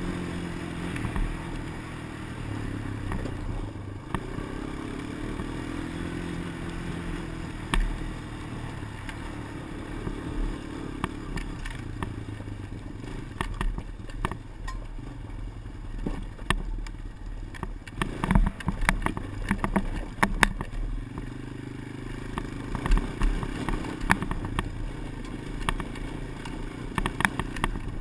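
Engine of the vehicle under a helmet-mounted GoPro Motorsport edition running and changing speed, overlaid by irregular sharp clicks, clustered thickly about halfway through and again near the end: the clicking fault in the camera's recording.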